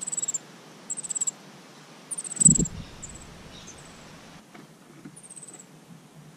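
Superb fairy-wren giving short, very high, downward-sliding trilled calls, about five in six seconds. A dull thump about two and a half seconds in is the loudest sound.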